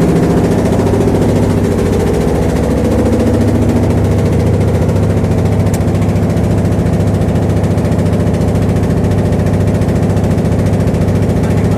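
A small boat's engine running steadily at a constant, low-pitched speed.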